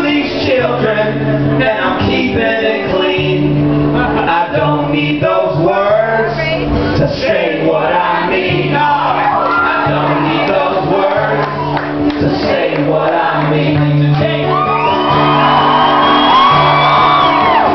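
Live band music with male voices singing. Near the end several voices hold long notes together.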